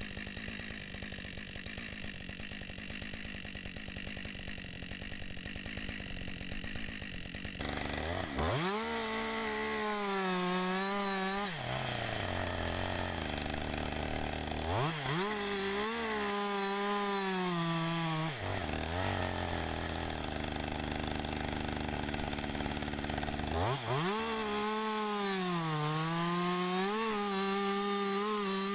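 Two-stroke chainsaw running low and steady, then revving to full throttle about eight seconds in. Its pitch dips and recovers as it cuts through wood, then falls back. It revs up and cuts twice more, the last time running on to the end.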